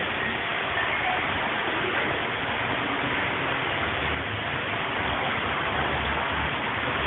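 Steady rushing, hiss-like noise wash, like falling water, from an electronic keyboard or synthesizer being played as a noise texture.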